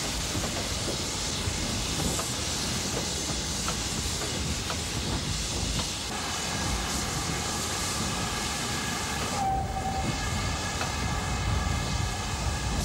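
Steam locomotive sounds: a steady rumble and hiss of steam. About halfway through, a sustained whistle-like tone of several notes comes in, breaks off briefly, and holds until near the end.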